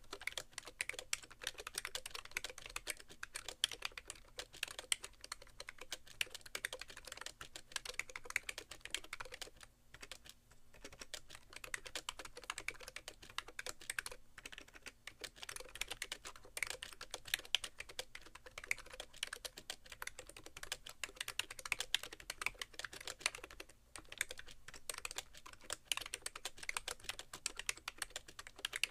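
Fast typing, about 80 words a minute, on a BTC 5100c (SIIG MiniTouch Plus) mini keyboard with rubber-dome keys and sliders. The keys clatter in a rapid, continuous stream, and the board sits bare on a keyboard tray with no towel under it. The stream breaks off briefly about 10 and 24 seconds in.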